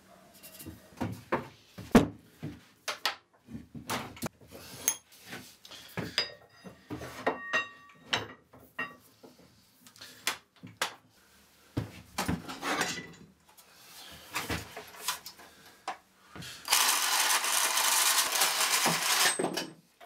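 Metal tubing handled on a wooden workbench and set in a bench vise: a string of knocks, clinks and scrapes, with the metal ringing briefly a few times in the middle. Near the end, about three seconds of loud steady cutting noise as a piece of the tube is cut off.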